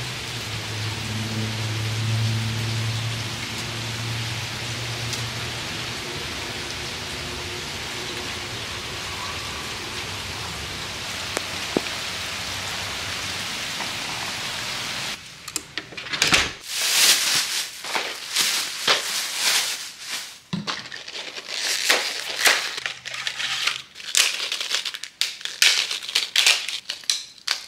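Steady rain falls for about the first half. Then comes a run of sharp, irregular crackles and rustles as a cardboard DayQuil cold and flu box and its folded paper insert are opened and handled.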